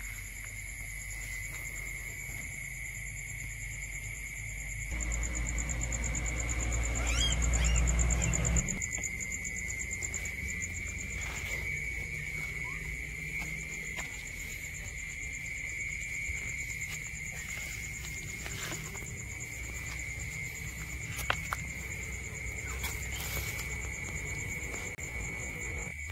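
Night insect chorus of crickets trilling steadily at two high pitches. A low rumble of handling or movement rises about five seconds in and stops near nine seconds.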